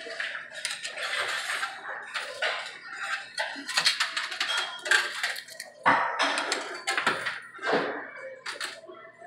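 Quarters clinking and clattering in a coin pusher machine: many quick, irregular metallic clicks.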